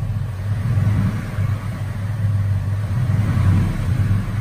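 2018 Ford F-150's 5.0-litre V8 running steadily near idle. This is the engine whose periodic tapping 'typewriter tick' the owner puts down to cam phasers knocked out of whack by internal engine damage.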